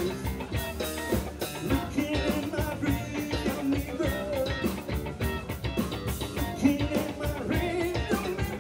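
Live rock band playing a song: a drum kit keeping a steady beat under electric guitars, with a singer's voice over the top.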